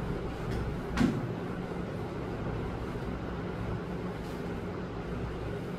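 Steady low electrical hum of room tone, with one short knock about a second in.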